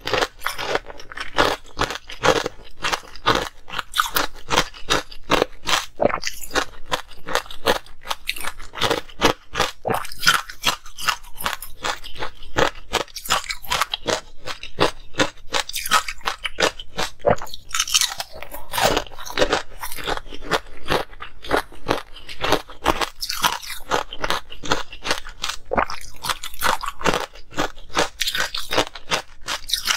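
Close-miked crunching and chewing of ice with pomegranate seeds frozen into it: rapid, crisp crunches, many a second, going on without a break.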